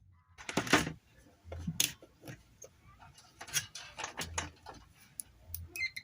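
Irregular clicks and knocks from a blender and small tools being handled during a repair, with the loudest knocks near the start.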